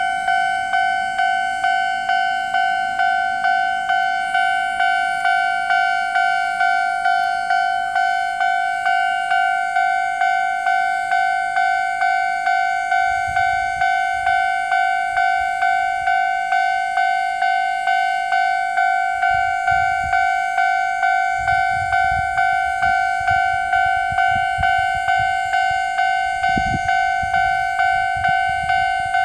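Japanese level-crossing electronic warning bell ringing in an even, repeating ding throughout. A low rumble comes in about halfway through and grows toward the end.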